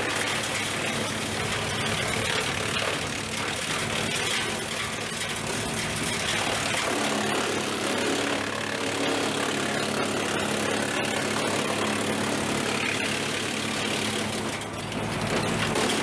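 Wood Max WM8H PTO-driven wood chipper, run off an International Harvester diesel tractor, chipping branches: a steady tractor engine note under the chipper's grinding, with scattered sharp cracks as limbs go through.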